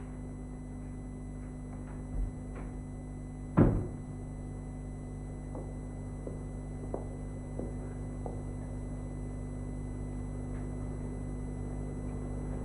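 Steady low electrical hum of room tone, with a single dull thud about three and a half seconds in and a softer knock a little before it.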